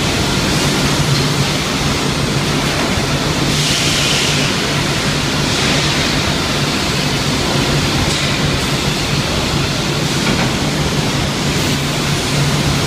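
Beef-feet vacuum conveying line running: a steady, loud rush of air through the stainless pipework over a constant low hum, with the hiss growing brighter for a moment about four seconds in and again near six seconds.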